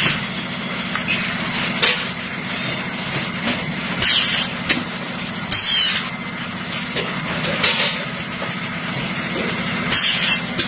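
A machine running with a steady low hum, with short bursts of hiss every second or two.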